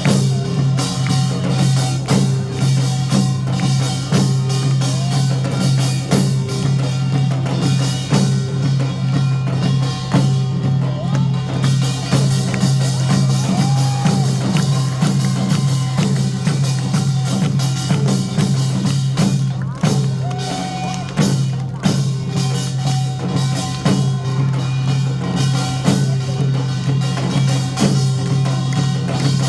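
Loud music played over a PA, with a steady drum-kit beat.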